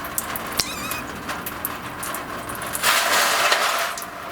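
Plastic fuel filter housing on a Mahindra 1626 tractor being worked loose: scattered clicks and short high squeaks. A louder scraping rasp lasts about a second, some three seconds in.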